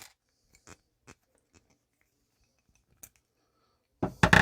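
Knipex wire stripper's screw cutter shearing a 6-32 screw: a few light clicks as the screw is set in the pliers, then a loud crunching snap of several sharp clicks near the end as the screw is cut through.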